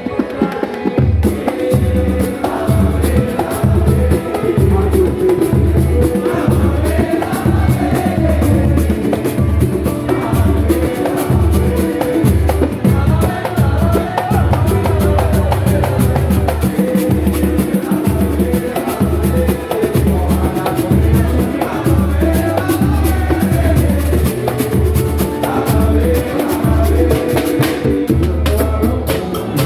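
Samba and pagode music: percussion and a steady pulsing bass beat under singing voices.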